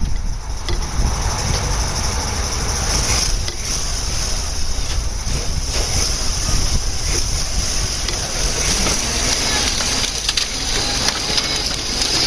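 A vehicle driving with a steady rough rumble and crunching: the tow vehicle pulling the stuck tractor out of soft ground.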